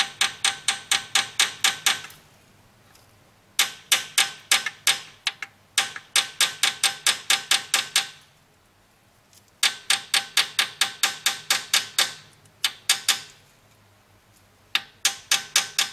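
Runs of quick, light taps on the side of a BMW S54 connecting rod cap, about five a second with a ringing note, broken by short pauses: the lower rod cap and its bearing shell are being knocked loose from the crankshaft journal.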